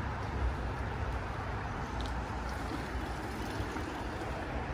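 Steady rush of a shallow stream flowing over stones, with a low rumble underneath.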